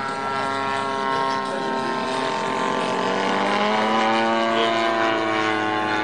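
Mamba 120 RC biplane's GP-123 engine and propeller running in flight, the pitch drifting up and down with throttle as it manoeuvres, growing louder through the middle of the stretch.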